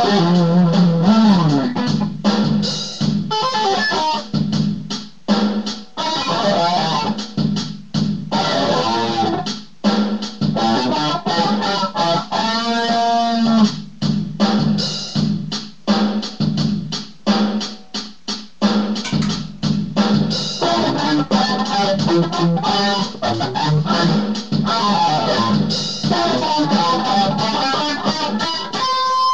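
Electric guitar played through a foot-pedal effect, in choppy phrases broken by many short gaps, with notes that bend and slide in pitch.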